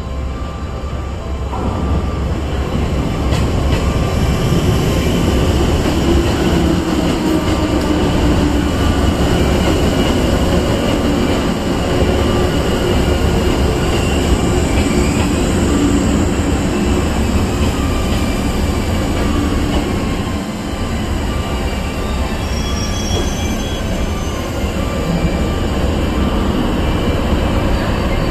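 381 series electric limited express train running into a station and slowing toward a stop. The steady rumble of wheels and running gear carries thin, high squealing tones from the wheels and brakes.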